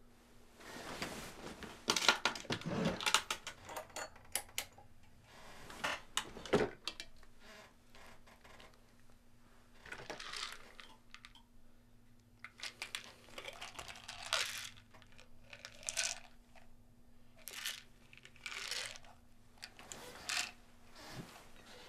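Bed covers rustling and small clicks and rattles of pills being handled, in irregular short bursts, over a faint steady low hum.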